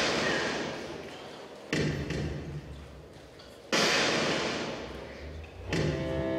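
Heavy booming hits in the dance's accompaniment music, about two seconds apart, each fading away slowly. Near the end a held pitched chord comes in.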